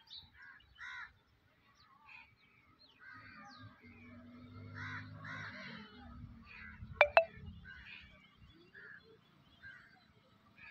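Birds calling on and off throughout in short, repeated calls. A low hum sits underneath for a few seconds midway, and two sharp clicks in quick succession about seven seconds in are the loudest sounds.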